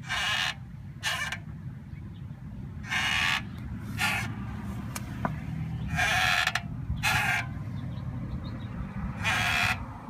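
Rear brake of a 2003 Volvo S40 giving a short harsh hissing grind each time the pedal is pressed and again each time it is released: four press-and-release pairs about three seconds apart, over a steady low hum. The noise comes from a seized rear brake caliper.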